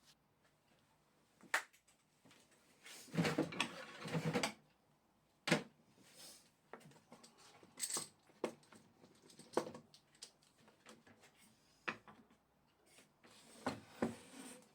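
Scattered knocks and clicks of things being handled, with a longer scraping, rustling stretch a few seconds in and another near the end.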